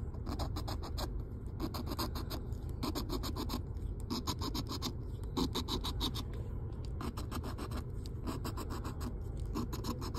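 A coin-shaped scratcher scraping the coating off a scratch-off lottery ticket in quick strokes, coming in short runs with brief pauses between them.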